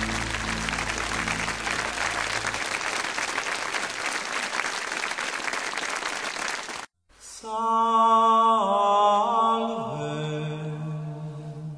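A steady hiss-like noise, with low music notes under it that stop about two and a half seconds in, runs until it cuts off about seven seconds in. After a brief gap, voices sing a slow chant on long held notes that step in pitch now and then.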